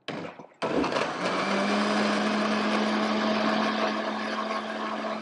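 Countertop jug blender chopping raw carrot with orange juice and a thyme infusion. A short burst comes first, then after about half a second the motor starts again and runs steadily, its hum settling a little higher about a second in.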